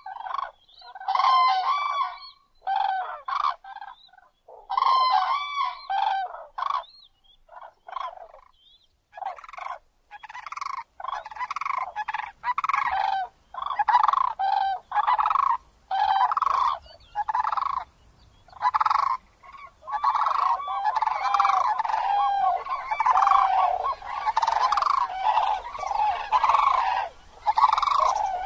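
Grey crowned cranes calling: a series of short, honking calls, coming in spaced bursts at first and in a near-unbroken run from about ten seconds in.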